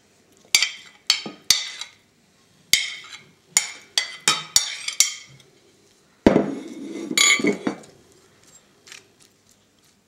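Metal spoon clinking against a ceramic plate and a glass bowl as beetroot slices are scooped across, about a dozen sharp clinks in the first five seconds. About six seconds in comes a louder knock and scrape lasting over a second, then only a few faint taps.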